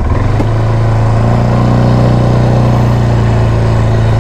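GA200 ATV's 176 cc engine picking up under throttle right at the start, from a pulsing low-speed note to a steady, louder running tone that holds.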